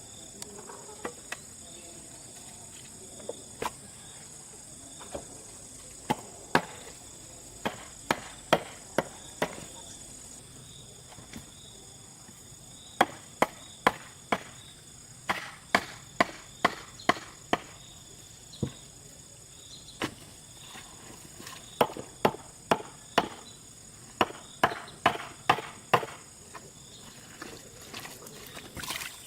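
Irregular sharp knocks from hand-tool work on the build, some in quick runs of three to five, over a steady high insect chirring.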